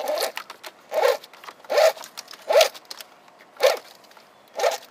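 Backup-camera wiring pulled hand over hand up through a slit rubber floor grommet: about six short rasping pulls, roughly one a second.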